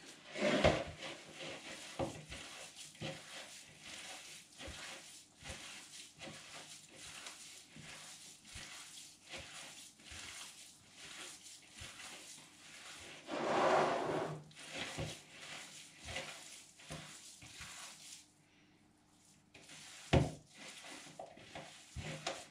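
Bare hands squishing and pressing raw minced pork and beef in a plastic bowl, a continual run of irregular wet clicks and squelches. A louder scrape about halfway through and a sharp knock near the end.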